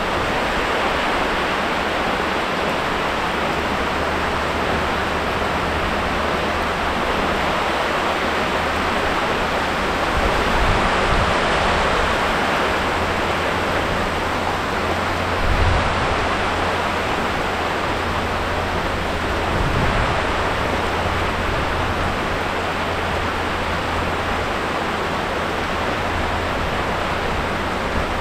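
Heavy tropical rain pouring down, a loud, steady hiss with a low rumble underneath.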